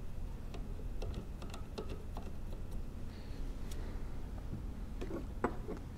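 Scattered faint clicks and small metallic taps from the brass soap injector on a pressure washer pump being handled and threaded back on by hand, with a few sharper clicks about five seconds in, over a low steady hum.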